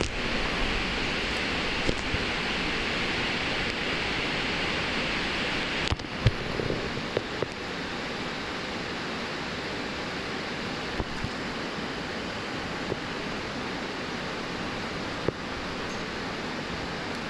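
Steady rush of flowing river water, easing slightly after about six seconds, with a few brief clicks and knocks around that point.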